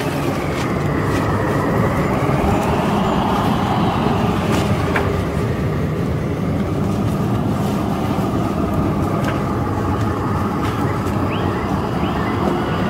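Steady low rumbling drone with a high tone slowly wavering up and down over it, a suspense sound bed with a few faint clicks.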